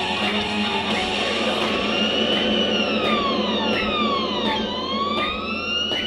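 A wailing siren, its pitch rising and falling slowly about every three and a half seconds, comes in about a second in as guitar music fades out. Under it are regular light taps in time with the jump rope skipping.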